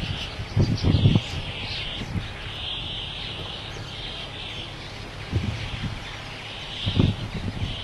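A huge flock of small birds calling together: a dense, unbroken twittering chatter. A few short low rumbling thumps, about a second in and again near the end, stand out as the loudest sounds.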